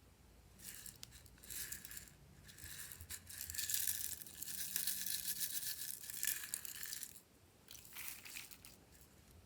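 Slime being squished and worked by hand, a crackly, crinkly sound that comes in several bursts, the longest lasting about five seconds in the middle.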